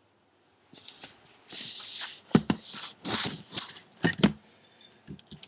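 Handling noises: two rustling swishes and a few sharp clicks, with a quieter patch near the end.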